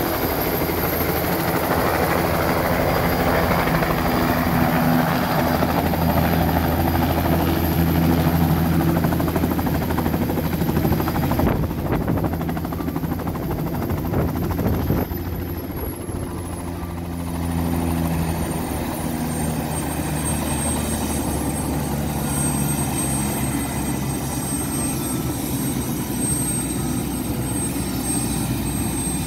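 Bell 206-type turbine helicopter landing and sitting on the pad, its two-bladed rotor beating steadily over a high turbine whine. About halfway through the sound dips and the whine slides down in pitch, then holds steady, as the engine is brought back toward idle on the ground.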